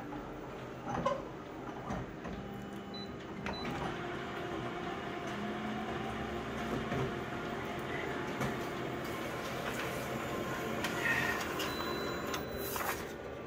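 Office colour photocopier running a copy job: the scan carriage moves under the glass, then the print engine runs steadily. A few clicks and clunks come in the first few seconds.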